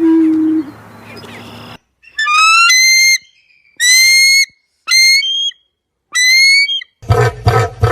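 A series of five short whistled bird calls, each rising and then holding, with gaps between them. A whine trails off in the first moment, and rhythmic hen clucking starts near the end.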